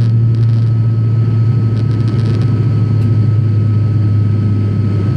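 Turboprop airliner's engine and propeller heard from inside the cabin while climbing after takeoff: a loud, steady drone with a deep hum and a faint thin whine above it.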